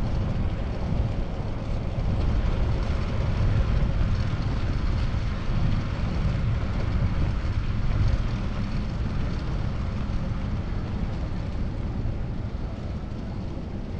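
Steady wind rumble on the microphone of a chest-mounted action camera on a moving bicycle, mixed with road noise.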